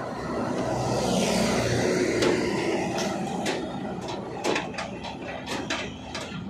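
Road noise swelling and fading as a vehicle passes, over a steady low hum, followed by a run of sharp clicks and knocks.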